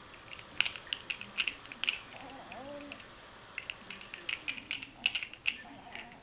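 Irregular light clicks and taps, some in quick clusters, with a faint short pitched call a little over two seconds in.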